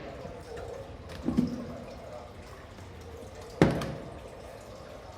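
Two short knocks over a steady low hiss, the second one, about three and a half seconds in, sharper and louder.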